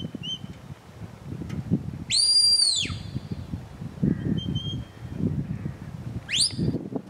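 Shepherd's whistle commands to a working Border Collie herding sheep. A long whistle about two seconds in rises sharply, holds, then falls, and a short sharp rising whistle comes near the end, with a few faint short pips between.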